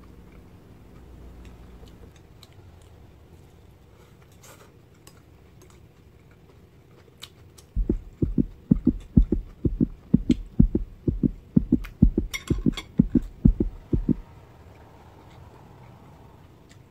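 A rhythmic run of deep, heartbeat-like low thumps, about three or four a second, starting near the middle and stopping suddenly after about six seconds. It is laid under the subscribe-and-like graphic as an outro sound effect. A faint steady hum lies beneath.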